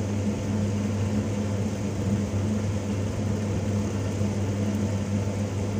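Steady low electrical hum of a running motor, with a soft even rush of moving air behind it.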